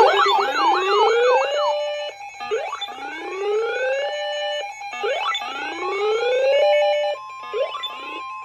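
Electronic alert siren: fast yelping sweeps at first, then slow rising wails about every two seconds over a steady tone. Near the end it gives way to a steady single-pitch alert tone, like the NOAA Weather Radio warning alarm tone.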